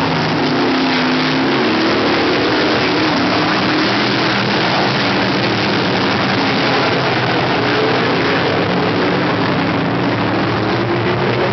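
Engines of several dirt-track budget sportsman race cars racing around a dirt oval, their pitch rising and falling as the cars accelerate and back off through the turns.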